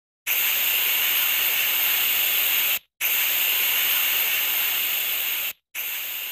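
Intro sound effect for a logo animation: a loud, steady hiss like static or spraying, starting abruptly, broken twice by brief silences and growing weaker near the end.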